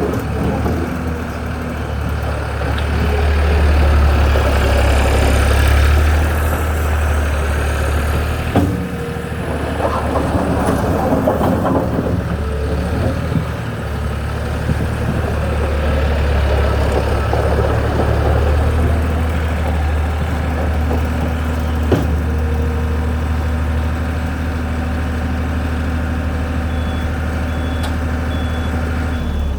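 New Holland LS180 skid steer loader's diesel engine running, growing louder and easing off as the machine is worked. A backup alarm starts beeping steadily near the end.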